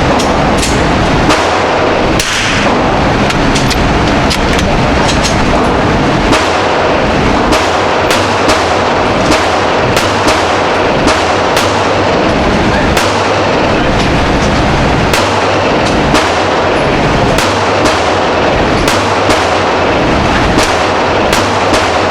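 Gunshots at a shooting range: sharp cracks at irregular intervals, often more than one a second, over a steady loud rushing noise.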